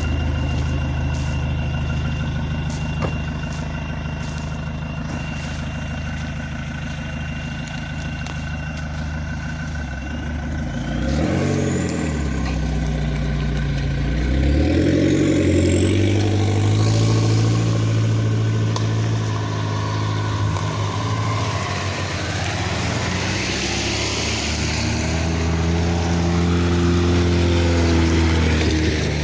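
Engines of off-road SUVs: a Land Rover Freelander idling steadily close by for the first ten seconds or so. Then from about 11 seconds in, other 4x4s, among them a Jeep Grand Cherokee and an Opel Frontera, drive slowly past with their engine notes rising and falling. The Frontera passes close near the end.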